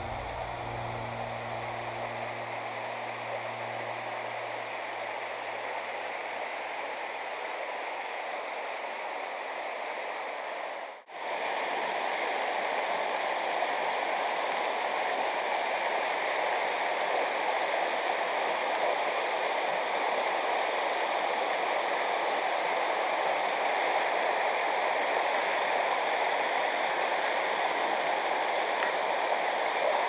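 Waterfall and stream water rushing steadily, an even wash of noise. After a brief dropout about eleven seconds in, it comes back a little louder.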